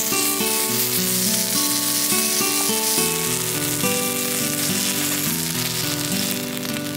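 Sauce sizzling as it is poured onto a hot black iron plate, with acoustic guitar music playing.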